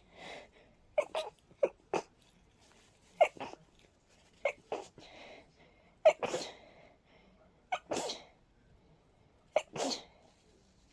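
A person sneezing in a rapid fit brought on by a head cold with a stuffy nose: about six sharp sneezes, one every second or two, each a quick catch followed by a breathy release.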